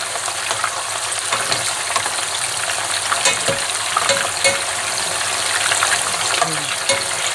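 Coated fish pieces, squid rings and prawns shallow-frying in hot oil: a steady sizzle dotted with many small crackles and pops.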